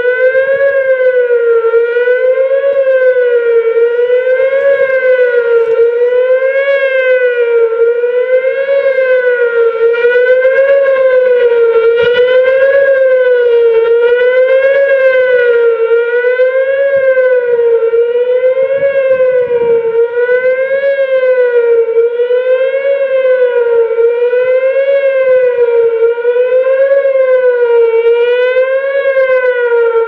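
Whelen WPS-2809 electronic outdoor warning siren sounding its Attack signal: a loud wailing tone that rises and falls evenly, about once every two seconds.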